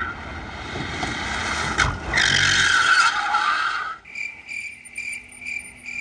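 Rimac Nevera's tyres scrubbing and squealing as the car slides, loudest from about two seconds in. Near the end it gives way to a quieter stretch with short high beeps in a steady rhythm, a few a second.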